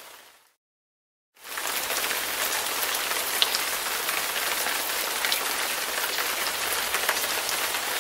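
Steady rain falling, with individual drops ticking through it. The rain fades out into a second of complete silence just after the start, then fades back in and carries on steadily.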